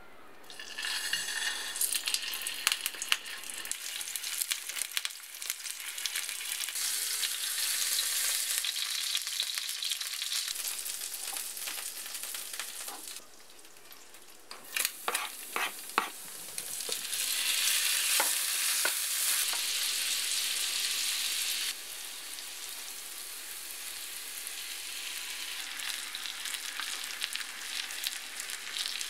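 Chicken leg sizzling in hot oil as it pan-fries in a cast-iron skillet. The sizzle drops away briefly a little under halfway, a few sharp clicks follow, and then the sizzle returns.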